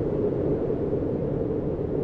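Steady, low wind noise, an even rumbling rush with no wood crackles in these seconds.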